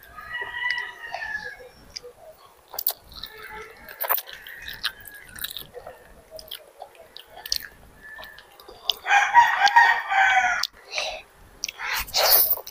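A rooster crows loudly once, about nine seconds in, with a shorter fowl call near the start, over close-up wet chewing and slurping of instant noodles.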